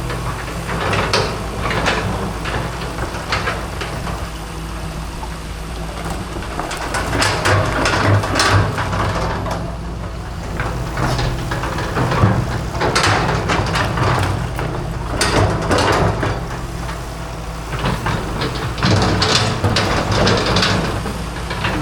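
Excavator's diesel engine running steadily under load, with repeated scraping and crunching as its bucket works against broken concrete.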